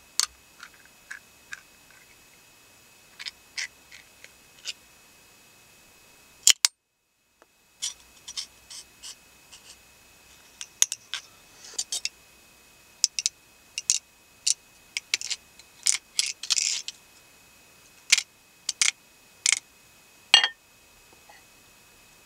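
Foley props being handled, giving an irregular run of sharp clicks and small taps, with a brief rustle about three quarters of the way through.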